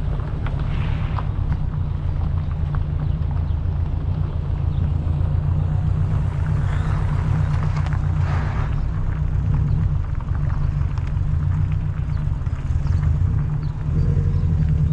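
Steady low rumble throughout, with a few fainter swells of noise above it.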